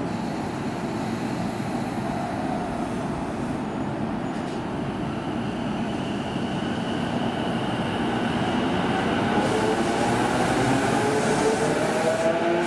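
Electric train running through the station with a steady rumble of wheels on rails. From about eight seconds in, a motor whine rises steadily in pitch and the sound grows louder as the train gathers speed.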